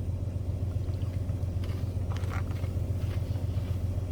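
Steady low hum, with a few faint brief handling noises about two seconds in.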